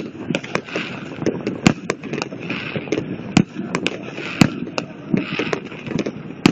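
Fireworks going off in an irregular string of sharp bangs, about two or three a second.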